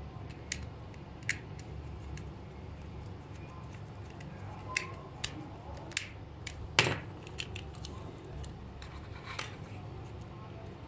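A small metal pry tool working at a plastic toy's shell: scattered sharp clicks and light knocks, with the loudest click a little past halfway.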